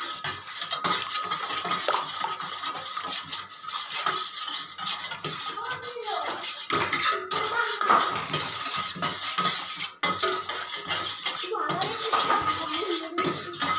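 A spoon scraping and clinking against a bowl in quick, uneven strokes as thinned, spiced yogurt is stirred, mixing in the spices, sugar and salt for the yogurt dressing.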